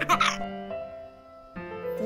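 Gentle keyboard music with held notes and a new chord about one and a half seconds in; a baby's laughter trails off in the first half second.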